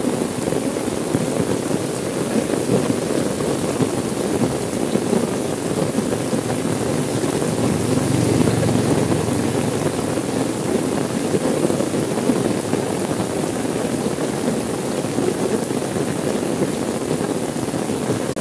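Steady rain on a car's windows and roof, heard from inside the car as an even, deep rushing hiss.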